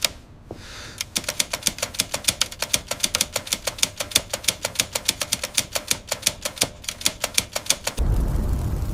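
Telegraph key clicking out Morse code in a rapid, fairly even run of sharp clicks, several a second, with a few short breaks. Near the end a deep low rumble sets in and becomes the loudest sound.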